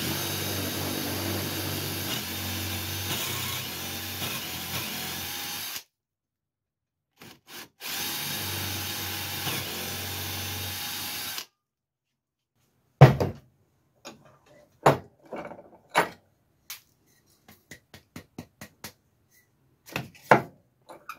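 Ryobi cordless drill boring a half-inch Forstner-bit hole into the end grain of a softwood 2x4 leg: it runs for about six seconds, stops, gives a couple of short trigger blips, then runs again for about three and a half seconds. After that come scattered knocks and clunks.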